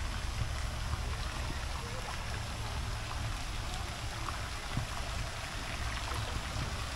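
Water of a lazy river trickling and splashing steadily, over a continuous low rumble.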